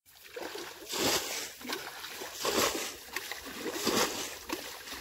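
Water being bailed out of a shallow pond with a metal pot. Three scoop-and-throw splashes come about a second and a half apart.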